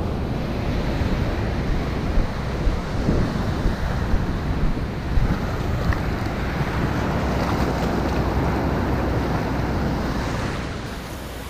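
Surf washing up the beach in the shallows, with wind rumbling on the microphone.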